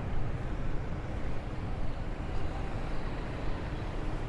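Street traffic noise: a steady low rumble of cars and motorbikes, picked up by a wireless lapel mic worn under a shirt.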